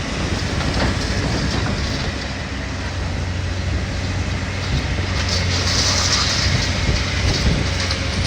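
Heavy demolition machinery running steadily with a low diesel engine hum, with clattering and rumbling of debris and wind noise on the microphone.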